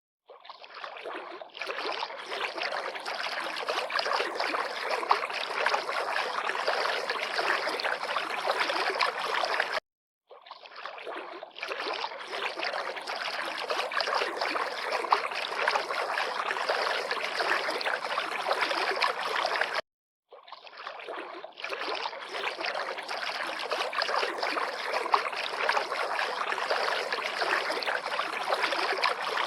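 River water lapping and splashing in a steady, dense wash of small splashes. The sound cuts out for a moment about every ten seconds, then fades back in.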